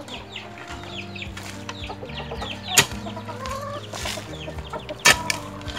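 Chickens clucking with rapid high falling chirps. A metal digging bar strikes the soil sharply about three seconds in and twice near five seconds as turmeric rhizomes are dug out.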